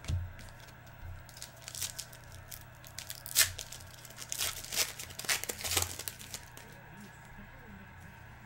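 Crinkling and tearing of trading-card pack wrappers with cards being handled, a run of irregular crackles and clicks that thins out after about six seconds.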